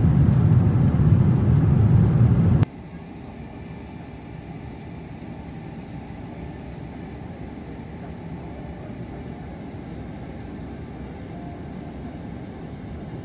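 Airliner cabin noise: a loud low rumble cuts off suddenly about two and a half seconds in. A quieter steady low cabin rumble follows.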